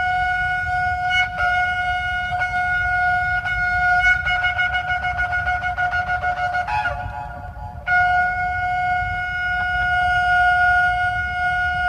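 A single long, steady horn-like note is held for about seven seconds, wavering rapidly in its second half. It breaks off briefly about seven seconds in, shifting pitch, then sounds again, steady, for about five seconds. It is the opening music of a stage dance act.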